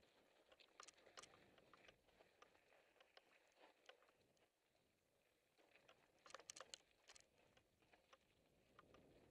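Faint clicks and rattles of a mountain bike rolling down a rocky trail: tyres crunching over loose stones and the bike rattling over the bumps, with a denser cluster of sharp clicks about two thirds of the way through.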